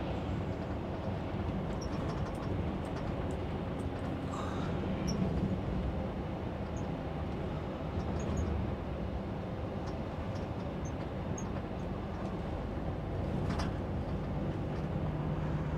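Steady engine drone and road noise heard from inside a truck's cab while driving along at speed.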